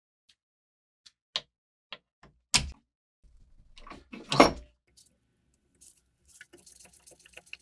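Hard objects being handled on a workbench: a run of separate clicks and knocks, the loudest about four and a half seconds in, then light scraping and rustling near the end.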